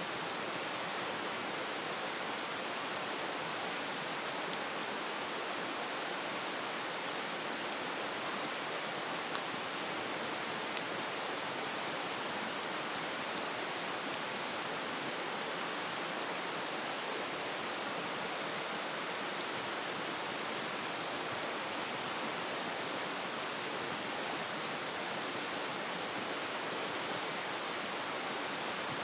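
Wood campfire burning with a steady hissing rush, broken by a few sharp crackling pops, the loudest two about nine and eleven seconds in.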